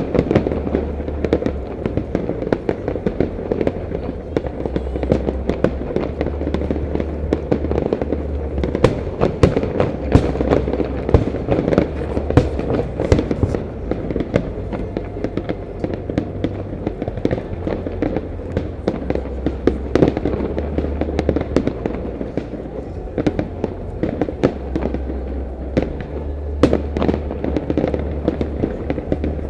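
Fireworks display: a dense, continuous crackle and pop of bursting shells with many sharp bangs, over a steady low drone.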